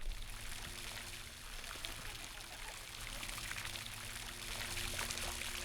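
Fountain water splashing and running, a steady rush with fine crackle. A faint steady hum sits underneath.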